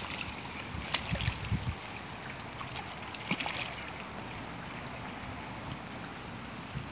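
A hooked bream splashing at the surface of shallow water as it is drawn in to the bank: a few sharp splashes in the first half, then quieter water sounds, with some wind on the microphone.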